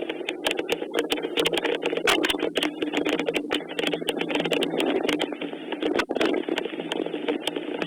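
Heavy rain falling, a steady dense patter with many sharp, irregular drop clicks.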